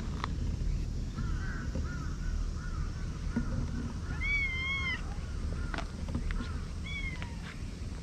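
A cat meows: one long, wavering meow about halfway through, with a shorter call near the end, over a steady low rumble.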